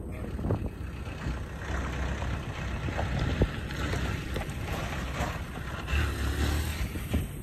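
A van's engine running as it pulls away: a low, uneven rumble that swells and eases.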